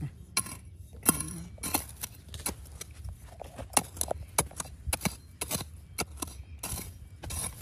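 Irregular series of sharp knocks and clinks, about two a second, over a steady low rumble.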